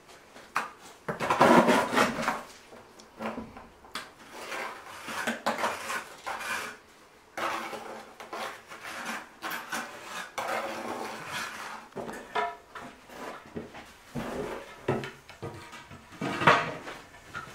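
Steel trowel scraping and clinking against a bucket and brickwork as mortar is scooped up and worked onto hollow clay bricks, in irregular scrapes and taps. Near the end, a louder knock as a wooden frame is set against the brickwork.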